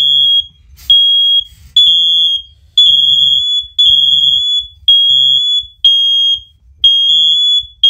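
Several interconnected First Alert OneLink hardwired smoke alarms sounding together in a test. A loud, shrill beep repeats about once a second, and here and there two units' beeps overlap.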